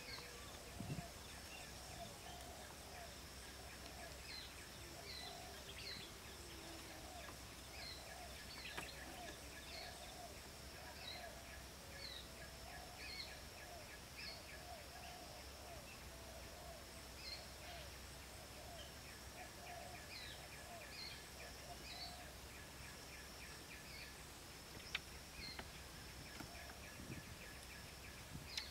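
Faint outdoor ambience of birds chirping in short repeated calls over a steady high insect buzz, with one sharp click near the end.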